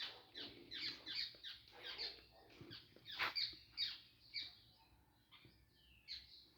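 Birds calling in the trees: a quick run of short, falling calls, several a second, that thins out about four and a half seconds in, with one more call near the end.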